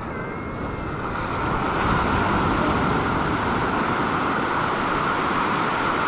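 Small surf breaking and washing up a sandy shore at the water's edge: a steady rush of waves that swells about a second in and then holds.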